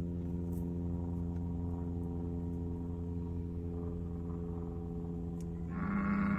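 Steady idling hum inside a stopped car, with a low drone and even tones. Near the end, a cow starts a bawling call.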